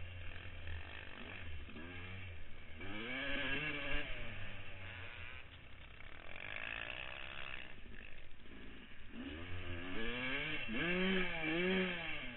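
Motocross bike engine heard through a helmet-mounted camera, revving up and down repeatedly as the rider accelerates and backs off through the track's bends. There is a lull in the middle, then a run of quick rising and falling revs near the end.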